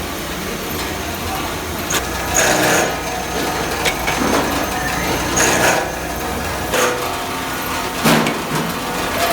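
Workshop machinery running with a steady low hum, with knocks and scraping bursts about every three seconds.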